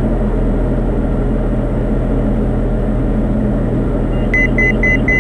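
Steady drone of a Diamond DA40's engine and propeller in the cockpit. About four seconds in, a run of short high-pitched electronic beeps starts, about four a second.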